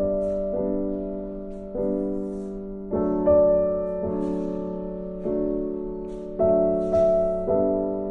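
Background piano music: soft, slow chords struck roughly once a second, each ringing and fading before the next.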